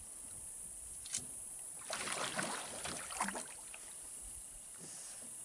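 Water sloshing and swirling beside an aluminium jon boat where an alligator has rolled under, with a sharp tap about a second in and a few small knocks from the boat.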